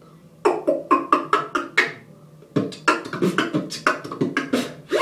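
Beatboxed 606 snare, the mouth imitation of a drum-machine rim shot: a quick run of about six sharp, clicky hits, a short pause, then a longer run of a dozen or so hits laid into a beat.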